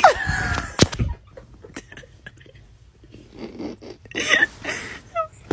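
A puppy's short whine falling in pitch right at the start, followed by a sharp click; soft breathy noises come about four seconds in.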